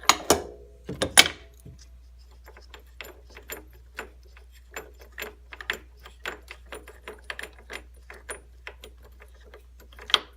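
Hand ratchet clicking in short, irregular strokes on the 13 mm bolt holding a snowmobile idler wheel, with a few louder metal knocks near the start and just before the end.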